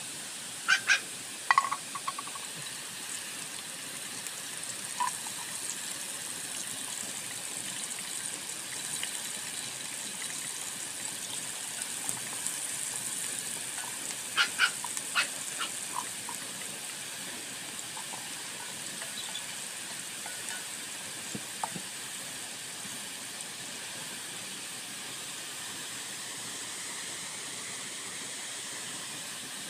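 Steady rushing of a nearby waterfall. A few short, sharp sounds cut through it, one cluster about a second in and another about halfway.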